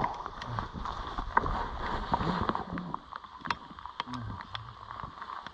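Komatsu bulldozer running and working, a low rumble under irregular sharp clanks and knocks.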